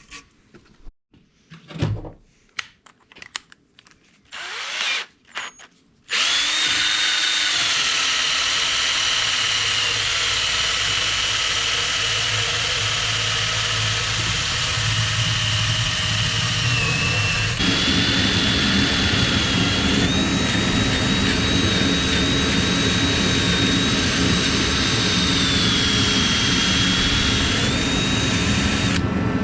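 Power drill spinning a small 3M abrasive stripping attachment against a pipe wrench, taking off paint and rust. After a few seconds of light rubbing and handling, the drill starts about six seconds in and runs steadily with a high whine that dips briefly in pitch now and then as it is pressed on, growing heavier partway through.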